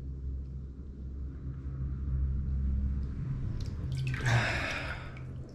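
Water splashing and running off a face lifted out of a glass bowl of water, a short rush about four seconds in, over a low steady hum.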